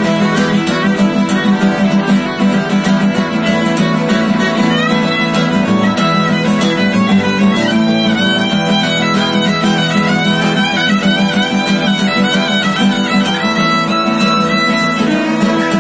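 Instrumental string music with fiddle and guitar at a lively, steady pace.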